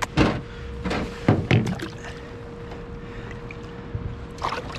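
Splashes and knocks as a smallmouth bass is lowered over a boat's side into the water for release: several sharp ones in the first couple of seconds, then quieter water movement and two more near the end, over a faint steady hum.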